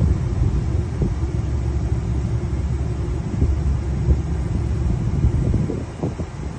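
Low, uneven rumble, with a few faint knocks near the end.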